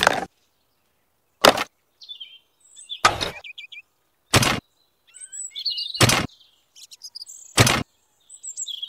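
Small birds chirping, broken by a short, sharp knock about every second and a half, six in all; the knocks are the loudest sounds.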